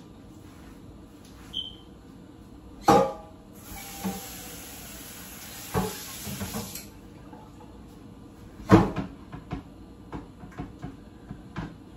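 Kitchen clatter at the counter. A sharp knock comes about three seconds in, then a steady hiss of a running tap for about three seconds. A louder knock follows near nine seconds, then a run of light clicks and taps of dishes.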